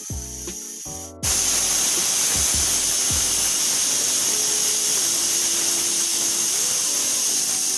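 Pressure cooker whistle blowing: a loud, steady hiss of steam escaping past the weighted whistle. It starts suddenly about a second in, the sign that the cooker has come up to pressure.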